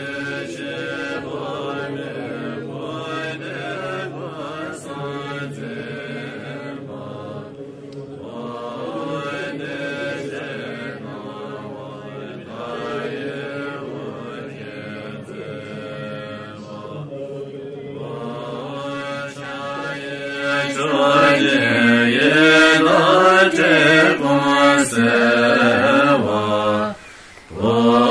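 A group of monks and practitioners chanting a Tibetan Buddhist mantra together in a steady, recitative tone. The chanting grows louder about two-thirds of the way through and breaks off briefly just before the end.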